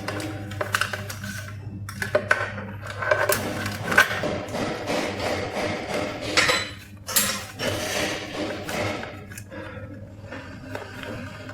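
Irregular clicks, taps and knocks of tools and hard parts being handled during e-bike repair work, over a low steady hum.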